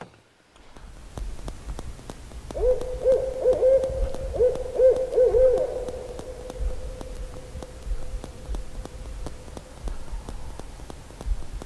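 Owl hooting: a rhythmic series of short hoots, then a long drawn-out final note that slowly fades.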